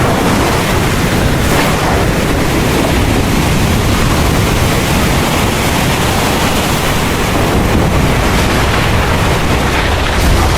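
Heavy rain pouring steadily: a dense, even hiss with a deep rumble underneath.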